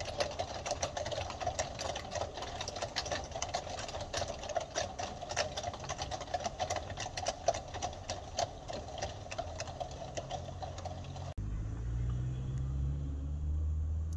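Fast, uneven mechanical clatter from a running machine. It cuts off suddenly about eleven seconds in and gives way to a low, steady hum.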